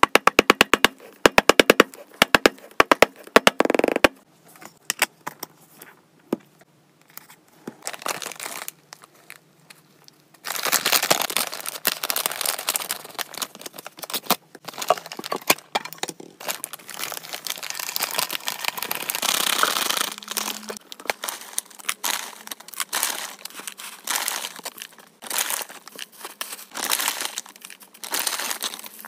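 A quick run of sharp clicks at the start, then, after about ten seconds, steady crinkling of a foil packaging bag being handled and cut open with scissors, and dried flowers rustling and crackling as they are tipped and pressed into a clear plastic tub.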